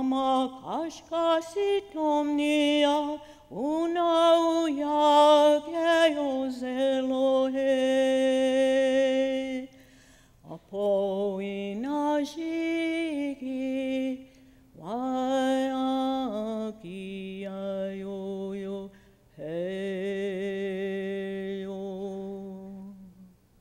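A woman singing alone with no accompaniment, a slow song of long held notes in several phrases with short pauses for breath between them; the later phrases sit lower in pitch than the first ones.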